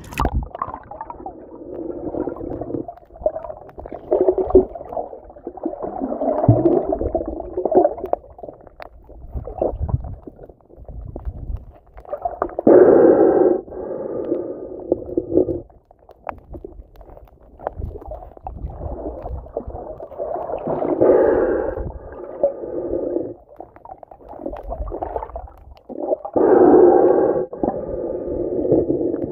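Muffled water sounds heard underwater: sloshing and gurgling that swell and fade irregularly, with louder muffled surges every several seconds.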